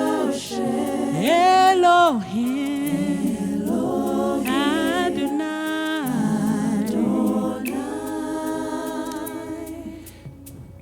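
Unaccompanied worship singing: voices holding long, slow notes of a praise song on the words "Elohim" and "Adonai", fading out near the end.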